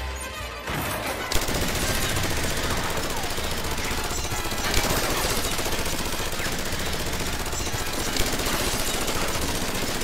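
Sustained automatic gunfire breaks out about a second in: a continuous rapid rattle of shots with a few louder cracks. The bullets riddle wooden barrels.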